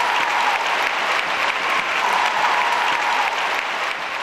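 A large concert audience applauding steadily.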